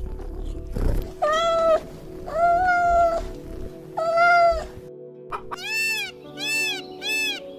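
Domestic cat meowing: three long, drawn-out meows, then a quicker run of shorter, rising-and-falling meows, over a steady background of music.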